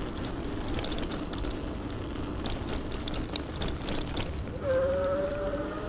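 Steady wind and road noise from riding an electric bike, with scattered light clicks through the middle. About four and a half seconds in, a motor whine comes in and rises slightly in pitch.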